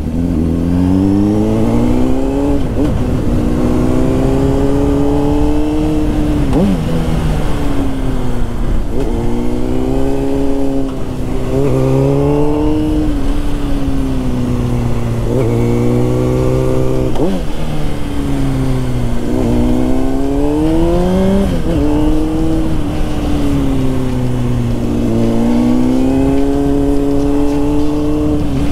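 Motorcycle engine under way, its pitch repeatedly rising as it accelerates and dropping back at each gear change or roll-off.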